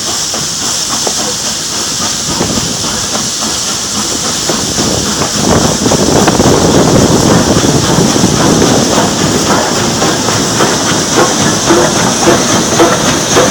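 A moving train's rumble and wheel clatter over a steady high hiss. The rumble and clatter grow louder about five and a half seconds in.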